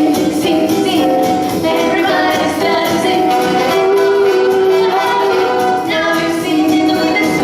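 Pop-jazz ensemble performing live: instrumental music with singing, long held notes.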